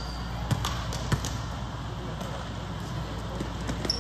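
A basketball bounced twice on a hardwood gym floor, about half a second apart, as the shooter sets up a free throw. A short sneaker squeak comes near the end, over a steady murmur of spectators talking.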